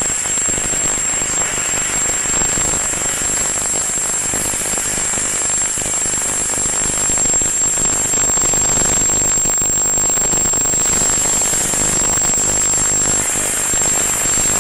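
Steam locomotive with tender passing close by: a loud, dense rush of steam and running-gear noise, growing a little louder about halfway through as it goes past.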